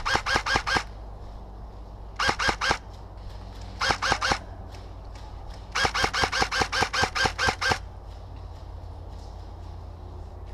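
LCT AKMS airsoft electric gun firing four bursts of rapid shots. The longest burst, about two seconds, comes in the second half.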